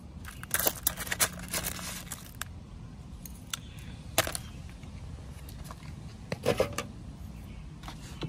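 A small metal garden scoop digging and scraping in a plastic pot of white gravel, the stones clinking and rattling in short clusters: a longer run near the start, one sharp click in the middle and another cluster later on.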